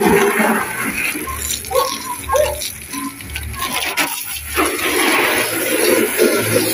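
Water from a garden hose spraying against a car's tyre, wheel arch and side panels and splattering onto concrete: a dense, uneven hiss and splash.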